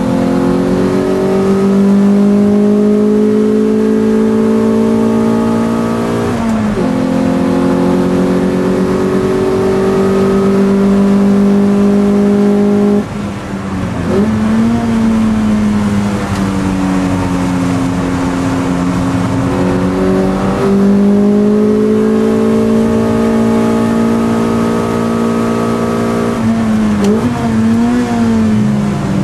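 Toyota MR2 race car's engine heard from inside the cabin under load, its note climbing slowly and dipping briefly four times, about every six to seven seconds.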